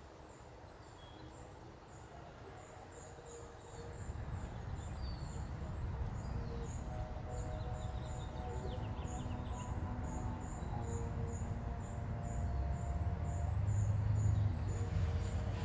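Outdoor ambience: a steady series of short, high chirps, about two or three a second, like an insect chirping. Under them a low rumble starts about four seconds in and grows louder towards the end.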